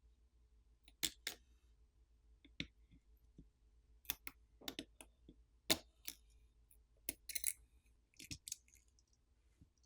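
Scattered small, sharp clicks and taps at uneven intervals, about a dozen, from taking a smartphone apart: camera flex connectors being popped off their board sockets and the small parts handled.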